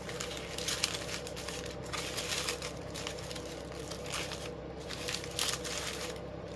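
Poly ribbon crinkling and rustling in the hands as the loops of a bow are twisted and fluffed up, with uneven crackles and a few short pauses.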